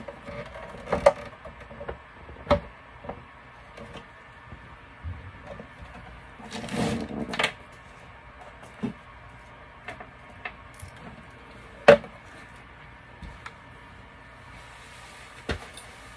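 Handling noise as a power supply and controller board are set and shifted inside a plastic electrical enclosure: scattered light knocks and clicks, a longer rustling clatter about seven seconds in, and a sharp knock near twelve seconds.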